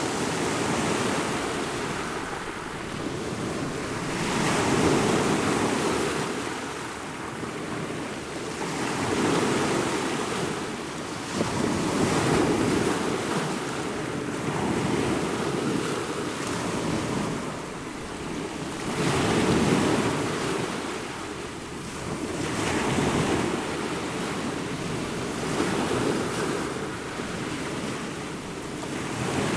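Ocean waves breaking and washing ashore in a continuous surf, swelling and falling back every two to three seconds.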